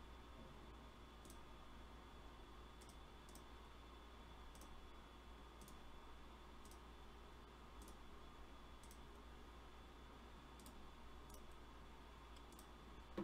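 Faint computer mouse clicks, about a dozen at irregular intervals, over near-silent room tone with a steady low hum. A single soft thump right at the end.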